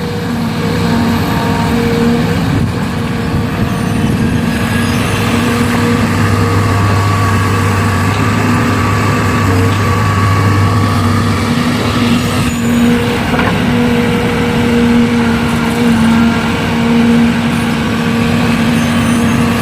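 Heavy diesel engine of a truck or excavator running steadily close by, its low hum swelling for a few seconds midway.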